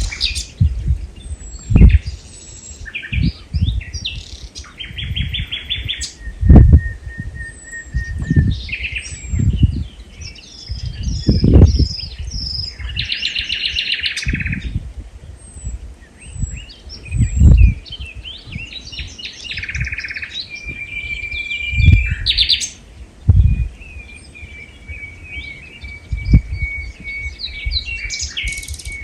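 Small songbirds singing: a mix of chirps, trills and some long held whistled notes from several birds. Repeated short low thumps are the loudest sounds, coming every few seconds.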